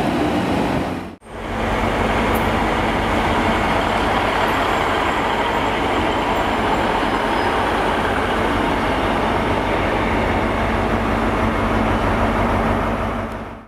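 Transport for Wales Class 150 Sprinter diesel multiple unit running on the adjacent track, a steady underfloor diesel engine drone with wheel and rail noise. Before it, a Great Western Railway Class 800 train is moving past, and the sound cuts out sharply about a second in.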